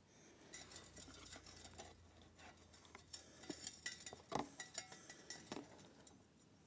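Faint handling noise: scattered small clicks, taps and light scrapes as a cardboard template is handled and marked.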